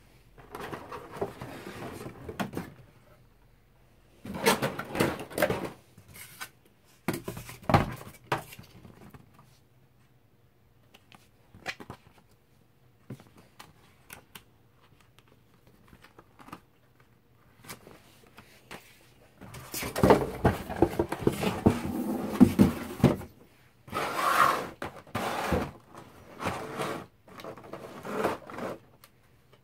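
Rustling, clicking and knocking of a cardboard box, plastic packaging tray and paper manual being handled during unpacking, in irregular bursts with quiet pauses between them; the longest stretch of handling comes about twenty seconds in.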